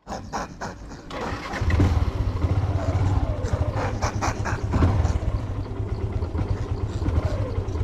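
Motorcycle engine running with a rapid low firing pulse, growing much louder about a second and a half in.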